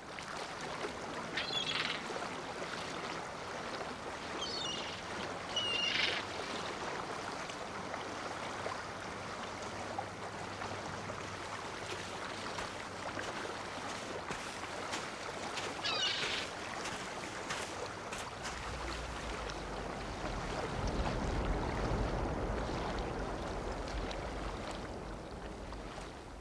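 Steady wash of water, like waves or surf, with a few short high calls scattered through it. A low rumble joins about two-thirds of the way in.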